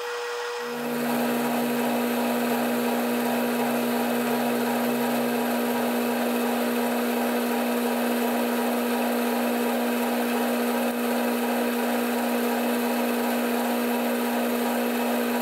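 Atlas metal lathe turning down the outside diameter of a steel bar with a carbide insert tool. The spindle runs with a steady hum, and under a second in the tool engages and a steady cutting noise with a constant whine sets in and holds.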